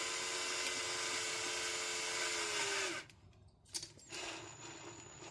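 Power drill running at a steady speed, then stopping about three seconds in. A knock and a softer, quieter whir follow.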